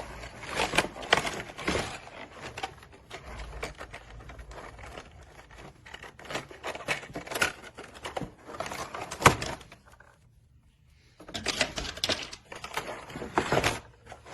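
Plastic toy parts and packaging being handled: irregular clicks, knocks and rustles, broken by a brief pause about ten seconds in.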